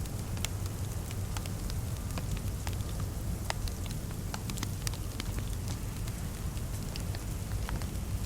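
Crackling fireplace fire: irregular small pops and snaps over a steady low rumble.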